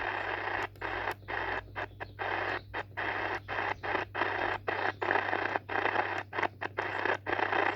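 Sony ICF-SW100 portable radio scanning the AM band: noisy static and hiss from its speaker, cut by many brief silences as it mutes between steps, over a steady low hum.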